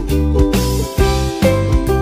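Background music with a steady beat and strong bass notes.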